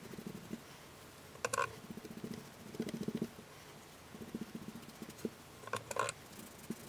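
Bursts of rapid rubbing strokes on a PPSh-41 part during refinishing work, with two short metallic clinks, about a second and a half in and again near six seconds.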